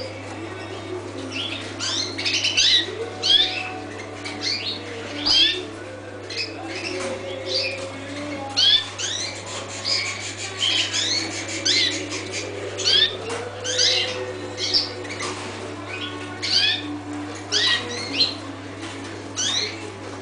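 A room of caged red canaries calling: many short, rising chirps, overlapping and repeated, over a steady low hum.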